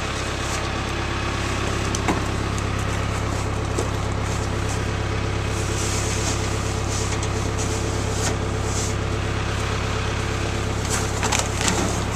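Backhoe's engine running steadily at idle, with a few short knocks and clanks, one about two seconds in and several near the end.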